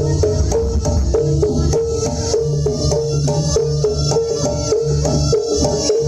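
Javanese gamelan music for a dance: hand drums and struck metal pitched percussion playing a fast, steady rhythm of repeated notes.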